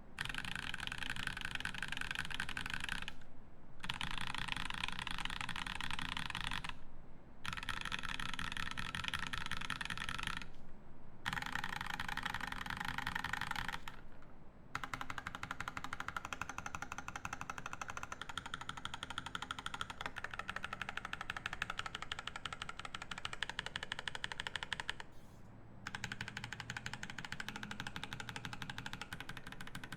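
Fast, steady typing on a Jules custom mechanical keyboard with lubed Boba U4T 62g tactile switches in a brass plate and GMK keycaps. It is a dense run of key clacks, broken by brief pauses several times.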